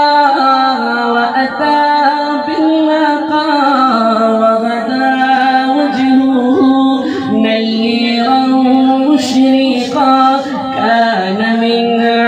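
A man singing a naat, a devotional Islamic poem, into a microphone, drawing out long held notes that glide slowly from pitch to pitch without clear words.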